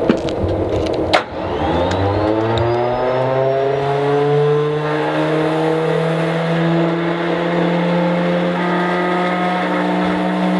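Starter cranking the Stinson L-1's Lycoming R-680 radial engine: two sharp clicks in the first second or so, then a whine that rises in pitch for a few seconds and holds steady, with no firing, as the engine fails to start.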